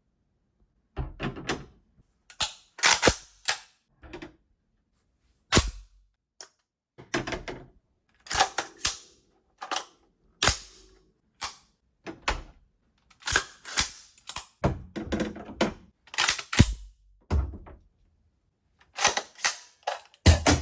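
An irregular run of sharp clicks, clacks and knocks of hard objects being handled and set in place, some in quick clusters with short pauses between.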